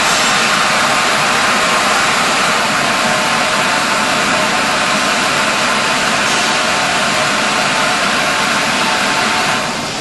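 A 5-gallon bottle brush washing machine running: a loud, steady rushing hiss with a faint hum under it, easing down a little near the end.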